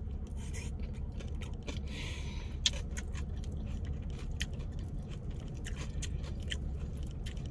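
Close-miked chewing of a mouthful of a Cava grain bowl, with many small, irregular wet mouth clicks and smacks.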